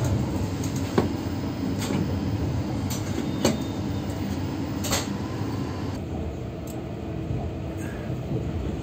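Steady running rumble of a moving double-decker passenger train heard from inside the carriage, with a few sharp clicks in the first five seconds. About six seconds in the upper hiss drops away and the rumble carries on softer.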